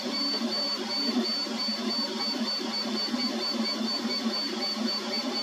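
Ortur 4 FDM 3D printer running as it prints a PLA part: its stepper motors move the hot end and bed with a shifting hum and a thin high whine.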